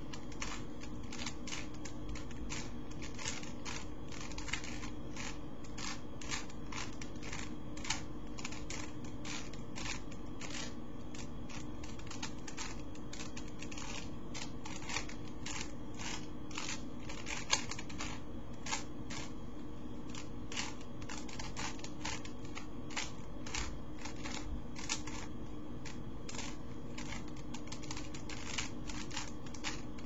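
A plastic Rubik's Cube being turned by hand: its layers rotating with short, irregular clicks, a few a second, over a steady low hum.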